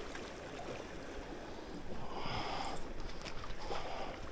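Steady noise of water and wind, with a brief higher-pitched sound about two seconds in.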